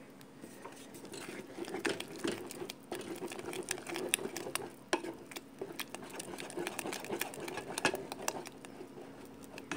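Wooden spoon stirring thick, wet rice in a pot, with many irregular scrapes and clicks against the pot over a steady low hum.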